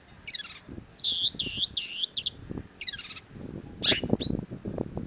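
Long-tailed shrike singing: a falling whistle, then a quick run of four repeated swooping notes, then more falling and rising whistles. A low, rough noise sits underneath in the second half.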